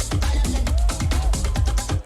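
Electronic dance music from a DJ set: a fast, steady beat with heavy bass and bright hi-hats.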